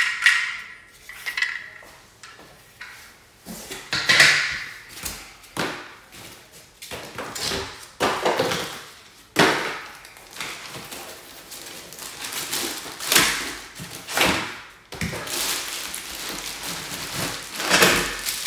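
Standing-desk parts being handled in and around their cardboard carton: metal frame pieces knock and clink irregularly, and cardboard and foam packing scrape and shift. From about three seconds before the end, a steadier rustle of plastic wrap comes in as a wrapped desk leg is pulled out.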